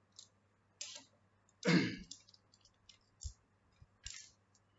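Screwdriver working the small screws out of a clear plastic SSD enclosure: scattered light clicks and taps of metal on screw and plastic case, with a few dull knocks. One louder short rasp comes about two seconds in.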